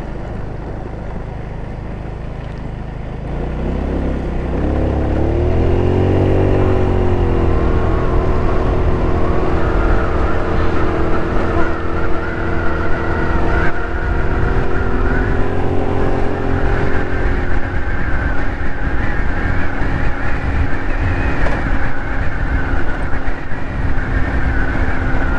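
GY6 four-stroke single-cylinder scooter engine running at low revs, then accelerating about three seconds in, its pitch rising for a few seconds before levelling off into a steady cruise.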